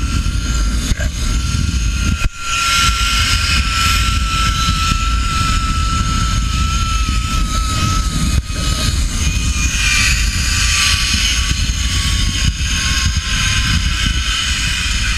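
Zip-line trolley running down the steel cable at high speed: a steady high whine that slowly falls in pitch, over heavy wind rush on the microphone.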